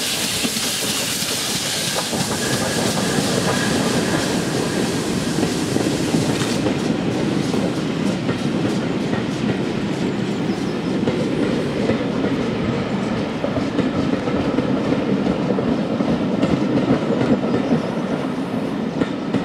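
A train of passenger coaches rolling past behind a departing steam locomotive, a steady rumble with the wheels clicking over the rail joints. A hiss of steam from the locomotive fades out about six seconds in.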